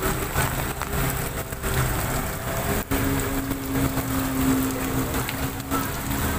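Vehicle engines running in heavy rain and floodwater, over a steady noise of rain and water. A steady engine hum comes in about three seconds in.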